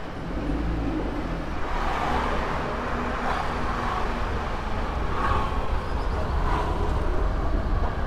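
Car engine and road noise heard from inside the cabin as the car moves off and drives along a city street, a steady low rumble growing slightly louder.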